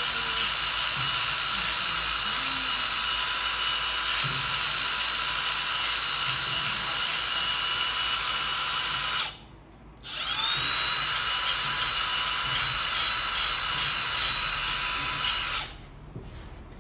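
Makita DBS180 18V cordless band file (narrow belt sander) running with a steady high whine. It switches off about nine seconds in, restarts a moment later with a rising whine as it spins back up, and stops shortly before the end.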